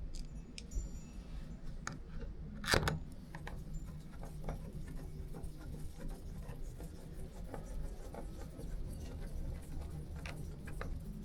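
Screws being hand-tightened into a keypad door lock's rose: scattered small metallic clicks and scrapes of the screwdriver and lock parts, with one louder knock about three seconds in, over a steady low hum.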